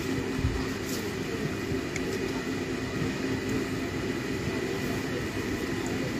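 A steady low mechanical drone with a faint hum in it, even throughout, with nothing else standing out.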